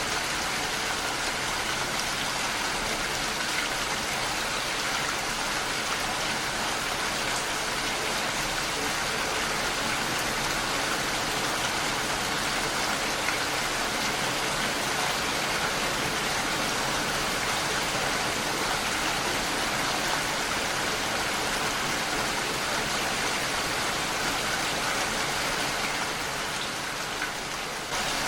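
Heavy rain falling steadily on a window pane: a dense, even hiss of drops. It softens slightly near the end, then comes back at full level suddenly.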